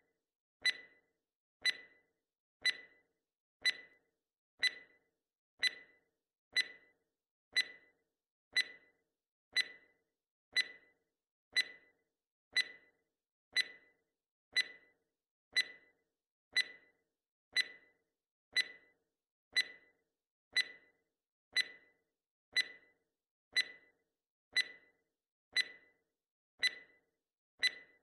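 Clock-tick sound effect marking a quiz countdown timer: one sharp, short tick each second, evenly paced.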